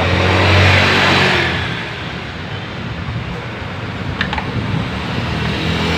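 A motor vehicle passing close by, its engine noise swelling in the first second and a half and then fading into a steady traffic rumble. There are a couple of faint clicks about four seconds in.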